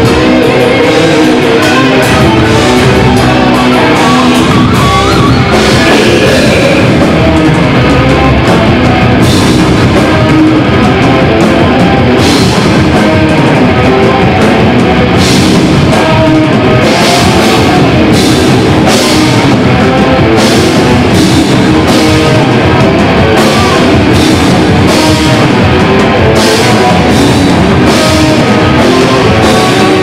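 Metal band playing live at full volume: distorted electric guitars and a drum kit, with regular hard drum hits coming through from about ten seconds in.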